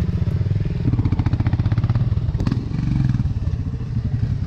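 Motorcycle engine running on the move, its rapid firing pulses distinct and loudest from about one to two and a half seconds in.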